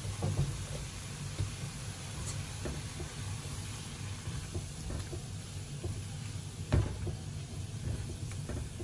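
Minced pork sizzling in a frying pan as a silicone spatula stirs it, with scattered knocks and scrapes of the spatula against the pan, the loudest about three-quarters of the way through.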